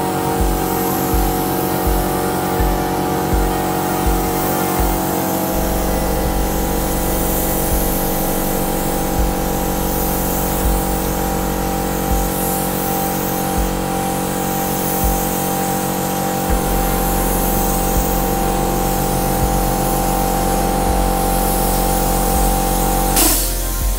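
Background music: sustained chords over a steady low beat, with a hiss in the high end.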